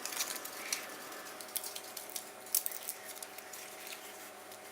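Scattered light clicks and rustles of headphone packaging being handled and pulled apart, over a faint steady hum.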